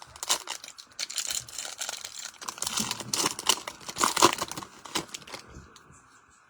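Crinkling and tearing of a trading-card pack's foil wrapper being ripped open by hand: a dense run of crackles lasting about five seconds that dies away near the end.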